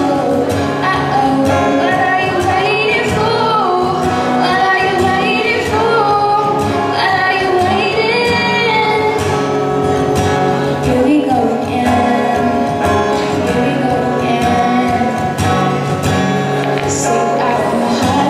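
A girl singing a song, accompanied by two acoustic guitars.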